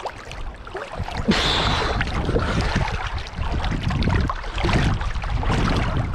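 Seawater sloshing and splashing as a person wades through shallow reef water, heard close up at the water line with a low rumble. It gets louder about a second in.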